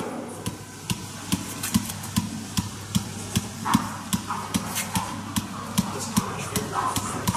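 PAPIMI ion-induction therapy device pulsing: sharp, evenly spaced clicks of its spark-gap discharges, about two and a half a second, over a low steady hum.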